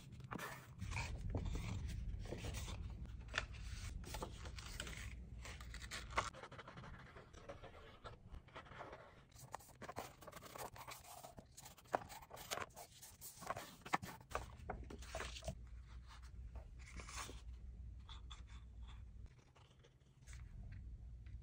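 A bone folder scraping along folded paper to sharpen the creases, with paper rustling and sliding on the table. A few sharper clicks and taps stand out among the strokes.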